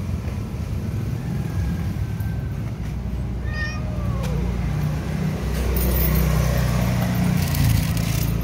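A cat meows once, a short call that rises and falls in pitch, about three and a half seconds in, over a steady low rumble of street traffic.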